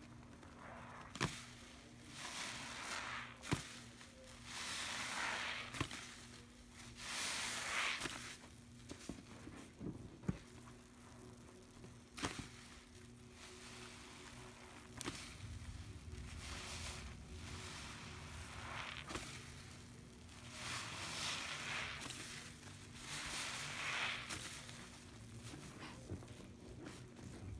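A sponge soaked in foamy Pine-Sol lather being squeezed and kneaded by hand in a plastic bucket: wet squishing swells that come every couple of seconds, with a few sharp clicks between them.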